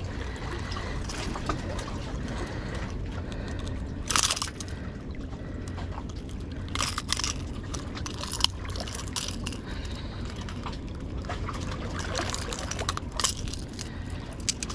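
A fish being unhooked with pliers: a few short rustles and clicks over a steady low rumble, with a sharp click about eight seconds in and a cluster of them near the end.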